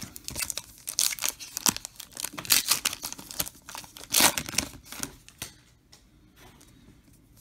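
Foil trading-card pack being torn open, its wrapper crinkling in quick, irregular rustles. The crinkling dies away a little over two thirds of the way through.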